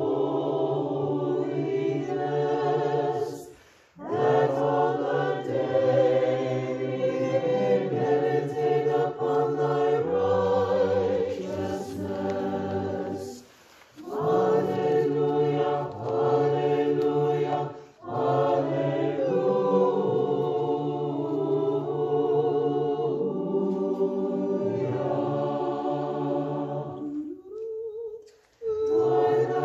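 Church choir singing the dismissal hymns of the Orthodox Divine Liturgy in sustained chords, breaking off briefly between phrases four times.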